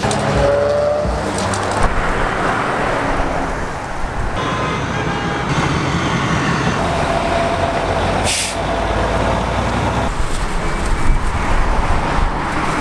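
Street traffic: cars and trucks driving past on a busy road, a steady rumble with a brief high hiss about two-thirds of the way through.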